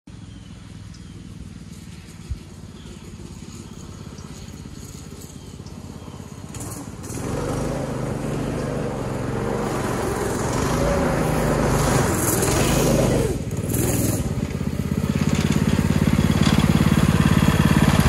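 Go-kart's Harbor Freight Predator 212cc single-cylinder four-stroke engine running as the kart drives up, faint at first and getting much louder from about seven seconds in, with a crunch of tyres on gravel while it comes up the driveway. Near the end it runs steadily close by. A single sharp click sounds about two seconds in.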